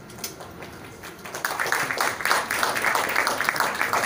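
Audience applauding, the clapping starting about a second in and swelling to a dense, steady round of claps.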